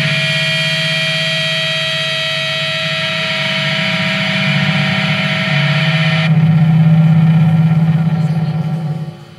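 Distorted electric guitar drone from a live noise-rock recording: a dense, steady wall of held tones over a heavy low hum. A high held note and the upper hiss drop out about six seconds in, and the drone falls away sharply near the end as the track closes.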